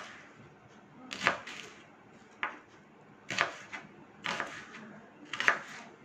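Kitchen knife cutting through onion onto a wooden chopping board: five separate cuts about a second apart, each a sharp knock of the blade on the wood.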